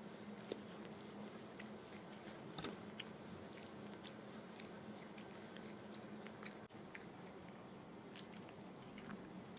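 A cat eating: faint, irregularly spaced chewing and mouth clicks over a steady low hum.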